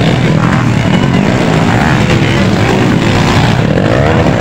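Several dirt bike engines revving hard on a motocross track, their pitch rising and falling as the riders throttle over the jumps.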